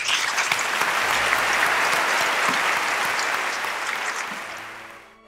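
Audience applauding: dense clapping that starts at once, holds steady, then dies away near the end.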